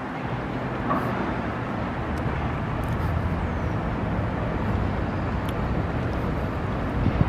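Steady low rumble of city traffic noise, with a few faint clicks.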